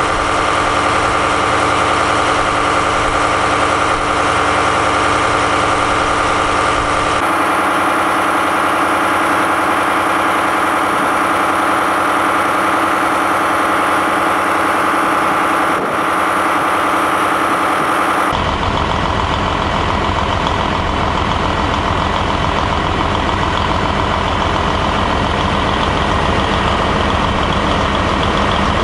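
Railway diesel engines idling steadily: first the generator diesels of the E001 Shiki-shima cruise train, then, after a cut about two-thirds of the way through, the diesel engine of a DF200 'Red Bear' locomotive, running with a low, muffled note.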